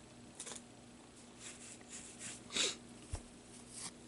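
Faint handling of trading cards and pack wrappers: a few soft, short rustles and a light knock on the table.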